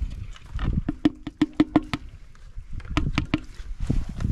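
Knife chopping fresh herbs on a wooden board: quick, sharp knocks in short runs of about five a second.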